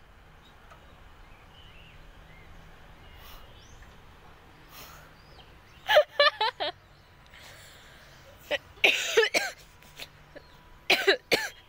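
A few short, loud bursts of a person's voice without words, about six, nine and eleven seconds in, over a quiet background.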